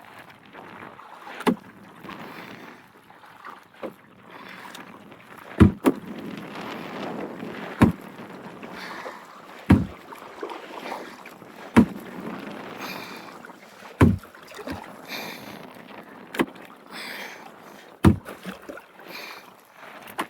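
Kayak being paddled: a sharp knock about every two seconds with each paddle stroke, with water swishing between strokes.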